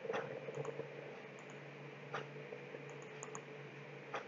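A few faint computer mouse clicks, the plainest three about two seconds apart, over a low steady hum.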